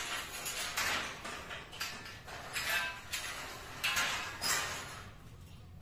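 Metal tent-frame arches and pipe sections clanking and scraping as they are handled and fitted together: a run of about seven sharp metallic knocks and rattles, roughly one every half second to a second.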